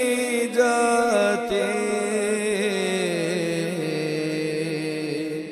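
A male voice holding a long, slowly wavering sung note in an Urdu Muharram recitation. The pitch steps lower midway and the voice gradually fades toward the end.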